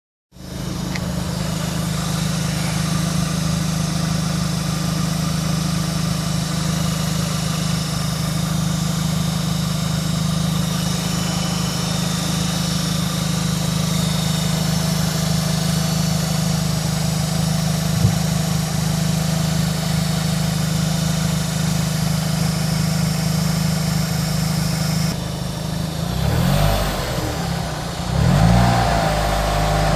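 Opel Astra H OPC's Z20LEH 2.0-litre turbo four-cylinder idling warm, then revved a few times near the end. It carries an odd noise that comes only when the engine is warm, remains with the accessory belt removed, and gets louder with throttle.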